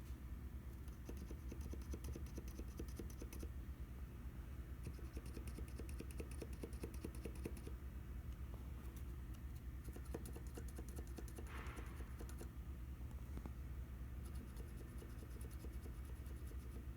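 Mechanical key switches with Cherry MX Silent Red stems in Gateron housings pressed in quick, uneven runs of muted clicks, over a steady low hum.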